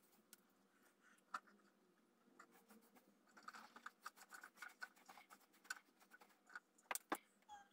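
Faint scratching and rustling of wood-shaving bedding being moved by hand, with scattered light clicks and two sharper clicks near the end.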